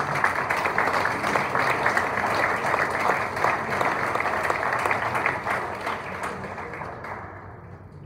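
Audience applauding, many hands clapping at once; the applause fades out near the end.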